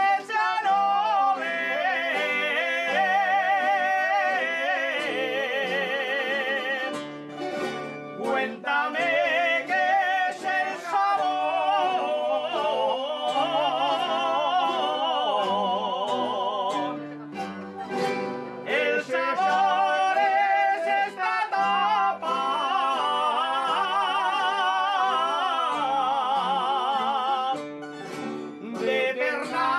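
Aragonese jota sung live by a solo voice with strong vibrato and long held notes, over guitars and other plucked strings. The sung lines break off briefly about every ten seconds.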